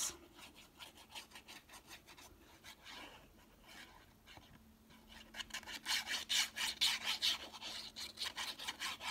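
Paper being rubbed by hand: quick back-and-forth strokes pressing a stuck-on piece down onto a card, faint at first and steady from about halfway through.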